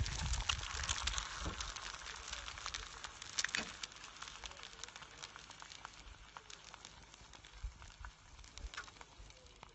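An egg frying in a black frying pan that sits on a sun-baked car bonnet: a fine crackling sizzle that slowly grows fainter. A few low bumps come in the first second or so.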